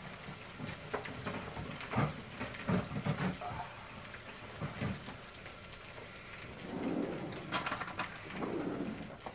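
Breaded cheese frying in hot oil in a skillet: a steady crackling sizzle, with a few soft knocks and a brief clatter near the end.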